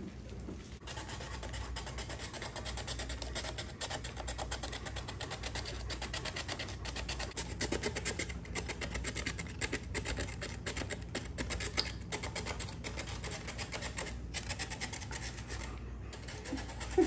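A carrot being grated on a handheld plastic grater: rapid, steady rasping strokes starting about a second in, with a couple of short pauses near the end.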